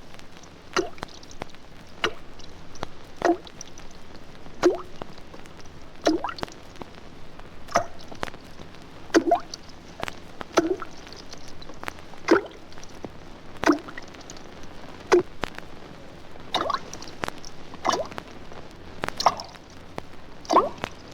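Water drops falling one at a time into a pool, each landing with a short pitched plop, about one every second or so at an uneven pace. Faint clicks and crackle from the vinyl record run underneath.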